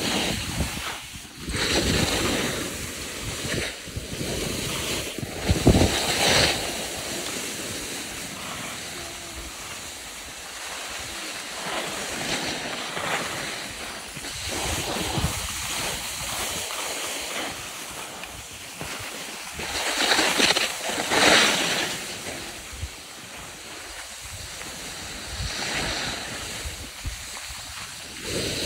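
Skis hissing and scraping over snow during a downhill run, with wind rushing over the microphone; the noise swells and fades with the turns, loudest about twenty seconds in.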